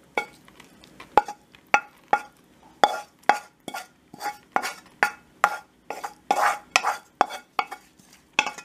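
A utensil scraping and tapping against a metal frying pan over and over, about two to three strokes a second, each with a short metallic ring, as cooked ground-meat filling is scraped out of the pan.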